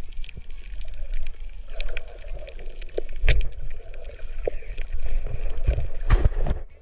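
Underwater sound through a camera housing: a low rumble of moving water with many scattered sharp clicks and a few heavier knocks, the loudest a little after three seconds in and again near the end, where it cuts off suddenly.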